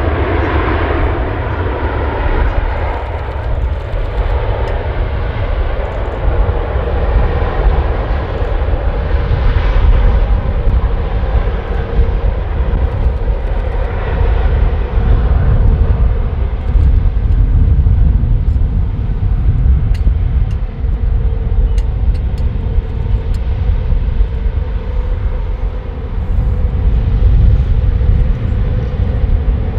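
Airbus A350-941's Rolls-Royce Trent XWB engines running at low power as the airliner taxis, a steady jet whine over a heavy low rumble that swells and fades.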